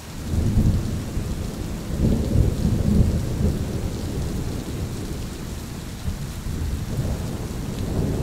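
Steady rain with a roll of thunder: a deep rumble swells just after the start, peaks about two to three seconds in, then slowly fades under the rain.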